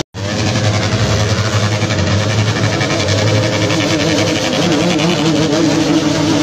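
Many motorcycle engines running together at idle and low speed, a steady mechanical drone. The sound drops out briefly just after the start.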